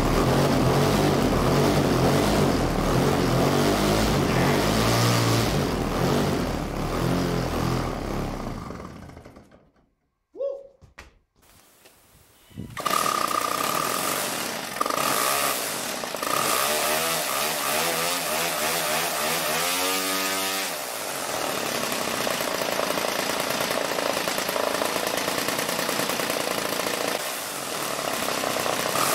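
Converted Ryobi two-stroke strimmer engine running flat out with a propeller on it, then dying away about eight to ten seconds in. After a couple of seconds of near silence it runs steadily again, its pitch sweeping briefly about twenty seconds in.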